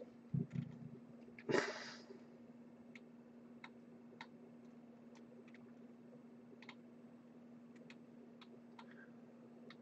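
Quiet room with a steady low electrical hum. A couple of knocks and a short rustle in the first two seconds, then faint, irregular clicks about once a second.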